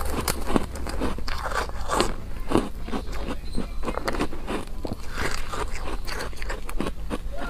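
Chewing a mouthful of soft foam ice: a steady run of irregular crisp crunches.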